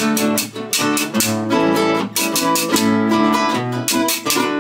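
Two acoustic guitars strumming an instrumental passage of Colombian folk music, with a metal scraper (güiro) keeping a steady rhythm of scrapes. Near the end the playing eases and a chord rings on.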